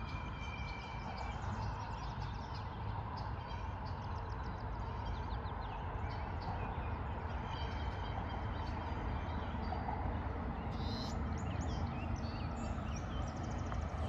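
Small birds chirping and calling over a low, steady background rumble.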